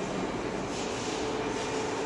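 Blue Elephant 1530 ATC CNC router running: a steady mechanical noise with a faint steady whine.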